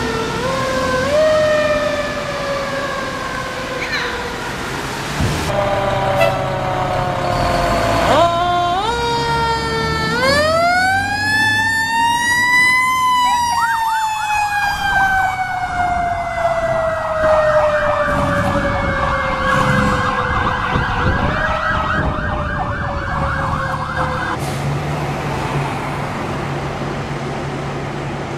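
Fire engine sirens: first a siren stepping up and down through short rising and falling tones. Then, about ten seconds in, a siren winds up in pitch over about three seconds and slowly coasts down for some ten seconds, the wind-up and run-down of a mechanical siren. Near the end only a truck's diesel engine is heard running.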